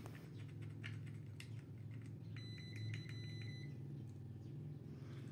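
UNI-T clamp meter's continuity beeper sounding a high, slightly broken beep for about a second near the middle, after a few light clicks of the probe tips on the motor terminals. A low steady hum runs underneath.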